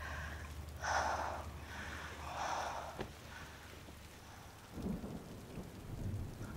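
Quiet rain sound with a low rumble like distant thunder that fades out about halfway through; a few soft, short sounds come near the end.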